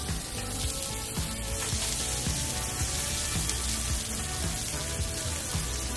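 Tater tots, bacon and onions sizzling on the hot plate of a Halo Elite4B flat-top griddle, a steady frying hiss, under soft background music.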